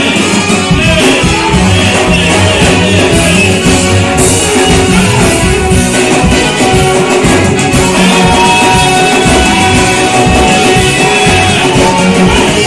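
Music with singing over band instruments and a steady beat.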